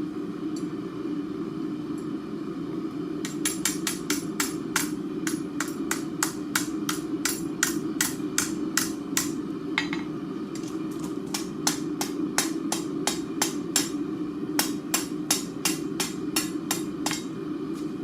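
Blacksmith's hand hammer striking hot steel on an anvil while forging a hinge: quick ringing blows about three a second, starting about three seconds in, with a short break near the middle. A steady low drone runs underneath.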